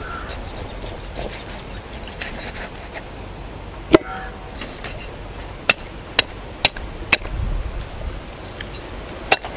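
A large knife chopping through a goat carcass onto a wooden log block: a sharp knock about four seconds in, then four chops at about two a second, and one more near the end.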